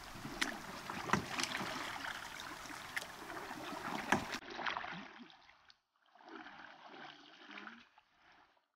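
Canoe paddles dipping and splashing in calm lake water, with small waves lapping, a few sharper splashes standing out. The sound fades away about five seconds in, leaving only faint traces.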